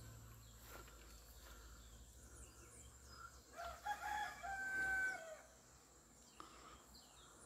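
A rooster crowing once, about halfway through: a single pitched call lasting about a second and a half, set against a faint outdoor background.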